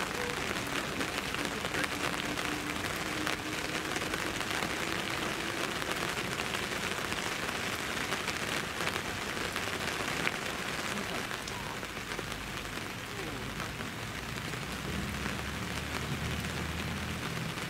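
Steady rain falling, the individual drops heard as many small taps over a continuous hiss.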